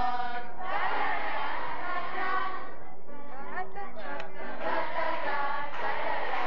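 A large group of voices singing a song together, a choir of campers.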